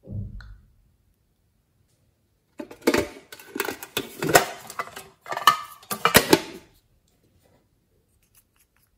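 A soft knock, then a few seconds of clicking and clattering as a small printed tin box is handled, its lid and contents rattling.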